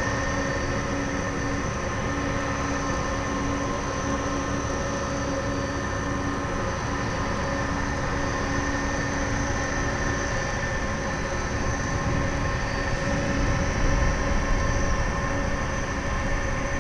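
Airbus A300-600R jet engines running at taxi power as the airliner rolls slowly by: a steady whine made of several held tones over a low rumble. The rumble grows louder about thirteen seconds in.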